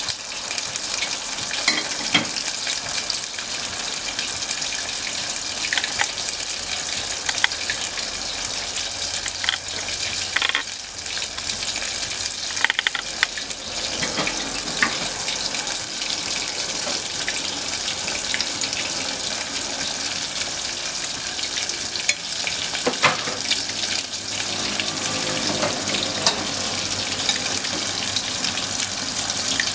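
Bone-in beef short ribs deep-frying in hot oil: a steady sizzle with many scattered pops and crackles.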